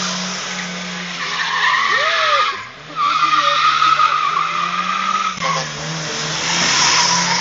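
Car drifting: tyres squealing hard over a steady engine note. The squeal drops out briefly about two and a half seconds in, then picks up again.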